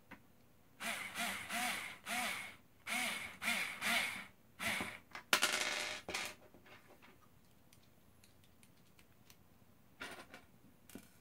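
Electric screwdriver driving the small black screws into an Xbox One disc drive: about seven short whirring runs of its motor over the first six seconds, each rising and falling in pitch, the last one longer and harsher. A few light clicks near the end.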